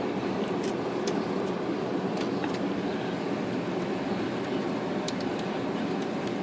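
Steady background hum in the workshop, with a few faint light clicks from the Royal 10 typewriter's type bar linkage being handled.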